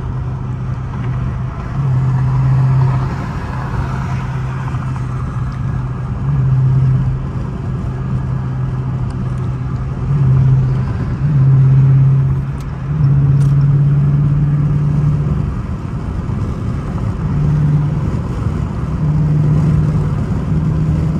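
Dodge Charger R/T's 5.7-litre Hemi V8 heard from inside the cabin at highway speed: a steady low exhaust note over road and tyre noise. The engine swells louder several times as the throttle is pressed and the car picks up speed.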